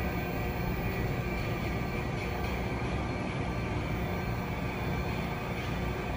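Steady machine hum with low rumble and a faint high whine from a powered-up RAS 74.30 CNC sheet-metal folding machine standing idle.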